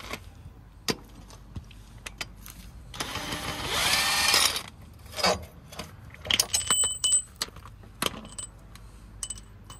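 A power tool whirring for about a second and a half, rising in pitch, among scattered sharp clicks and short metallic clinks of tools on car parts.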